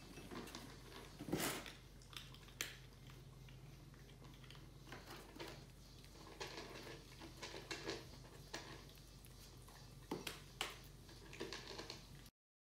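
Cats and a kitten eating dry kibble from plastic bowls: faint, irregular crunching and clicking of chewing, with light knocks against the bowls, over a low steady hum. The sound cuts off suddenly near the end.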